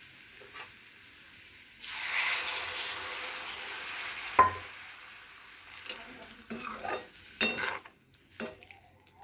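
Raw banana and potato curry in a hot pan sizzles faintly; about two seconds in, hot water poured into the pan sets off a sudden loud sizzle that slowly dies down, with one sharp metal clink near the middle. In the last few seconds a slotted steel spatula clinks and scrapes against the pan as the curry is stirred.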